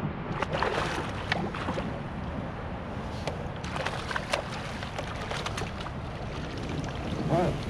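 Wind buffeting the microphone while water sloshes and splashes beside a kayak, with clusters of short knocks and rattles as a landing net and fishing gear are handled.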